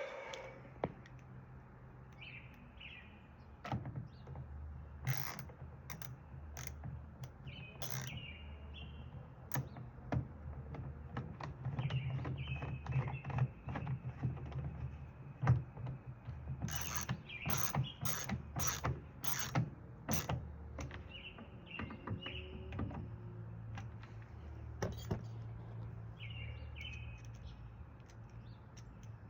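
Scattered clicks and knocks of small metal sliding-door lock parts being handled and fitted, in a quick cluster a little past halfway, with short bird chirps now and then over a steady low hum.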